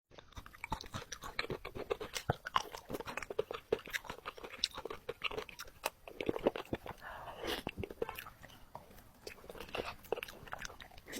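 Close-miked biting and chewing of crunchy sweet biscuits: rapid irregular crunches and mouth sounds.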